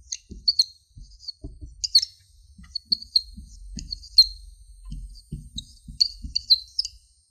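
Small birds chirping: many short, high chirps that fall in pitch, repeating irregularly. Soft low knocks sound now and then beneath them.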